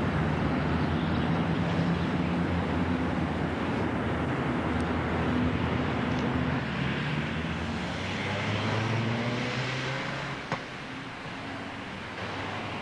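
Motor vehicle engine hum with traffic noise, steady and then softer after about ten seconds, with a single sharp click.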